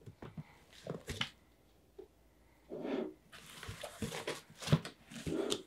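Cardboard shipping box being opened by hand: the flaps are pulled back with rustling and crinkling of cardboard and a few sharp knocks and scrapes, busiest in the second half.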